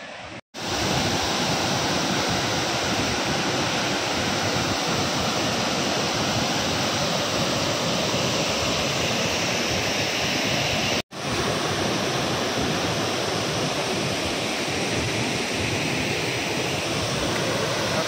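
Steady rushing of a large waterfall in monsoon flood, a dense wall of falling water. The sound cuts out for an instant twice, about half a second in and about eleven seconds in.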